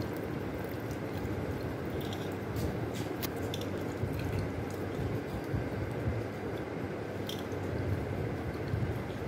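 Dog eating wet buttermilk rice from a hand, with scattered wet smacking and licking clicks over a steady low hum.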